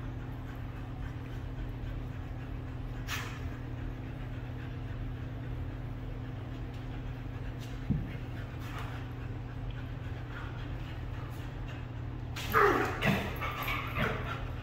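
Two Siberian huskies play-wrestling, with a short, loud burst of dog vocalising, whining and yipping, about two seconds before the end. A steady low hum runs underneath, and there is a single low knock a little past the middle.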